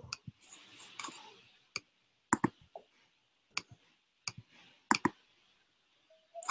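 Scattered sharp clicks at a computer, about a dozen over several seconds, some in quick pairs like double-clicks, with faint hiss between them, as a PowerPoint slideshow is reopened.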